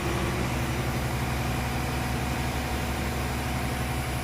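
Engine of a vacuum excavator lorry running steadily at a constant speed, a low, even hum.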